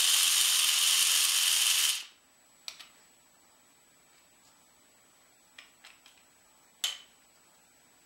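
Small 3D-printed PLA air motor spinning fast on air fed through a tube: a loud, steady rattling buzz that cuts off about two seconds in. A few light plastic clicks follow as the motor's parts are handled.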